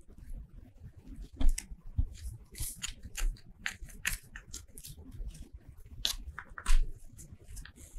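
Scissors snipping paper in short, irregular cuts, with paper rustling as it is handled. Two louder thumps come about one and a half seconds in and near the end.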